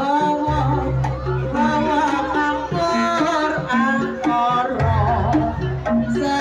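Jaranan accompaniment music: a singer's voice weaving over gamelan-style instruments and hand drums (kendang), with deep drum beats coming in twice.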